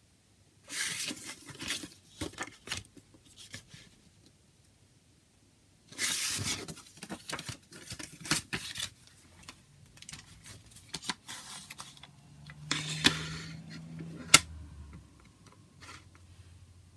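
A folded paper CD booklet is handled and folded up, rustling and crinkling in several bursts. Near the end comes a single sharp click, the loudest sound, from the plastic CD jewel case.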